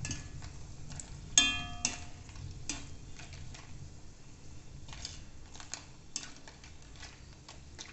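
Dried red chillies frying gently in coconut oil in a metal kadai: a quiet sizzle with scattered crackling ticks. A ringing metal clink comes about a second and a half in.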